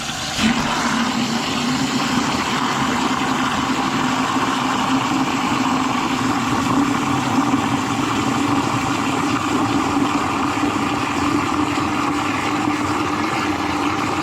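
Clean water under mains pressure rushing through a tankless water heater and out its flush hose into a bucket, a steady loud rush with a low hum that comes on suddenly about half a second in. It is the clean-water flush that carries loosened scale out after a vinegar descaling.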